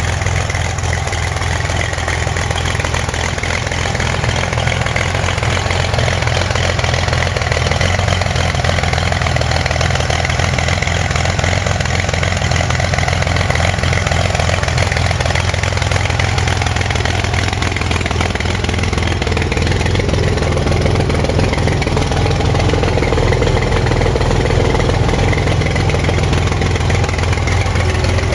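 A dune buggy's rear-mounted engine idling steadily.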